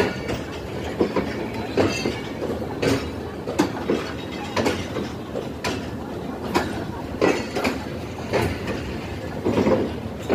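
Passenger train coaches rolling slowly past a platform, their wheels clacking over the rail joints about once a second over a steady rumble.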